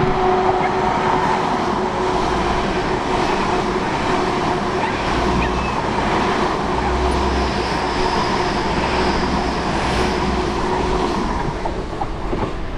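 Great Western Railway bi-mode Intercity Express Train passing close by, running on its diesel engines on the unelectrified line: a loud, steady running noise of wheels on rail with a steady hum, fading near the end as the train moves away.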